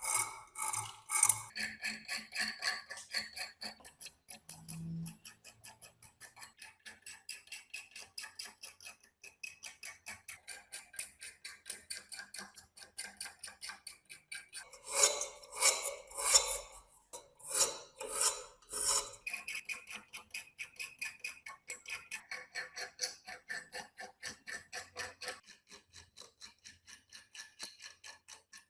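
Rapid, even scraping strokes of a hand tool on rusty metal, about three to four strokes a second, with a few heavier strokes partway through.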